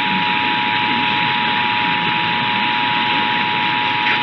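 Emergency Alert System attention signal: the steady two-tone alarm that announces an alert message, received over the radio with heavy static hiss beneath it.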